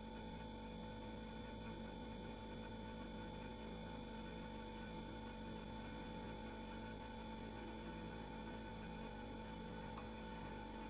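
Refrigerator running: a steady, faint hum and buzz from its compressor, with a few constant tones over a soft hiss.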